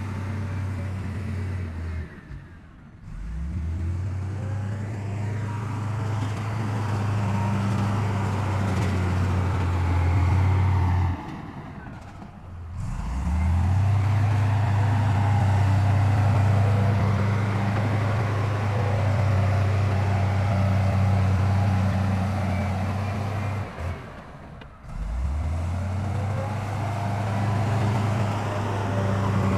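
Diesel engines of heavy earthmoving machinery running steadily with a deep drone. The sound drops away briefly three times, about two and a half, twelve and twenty-four seconds in, and comes back each time.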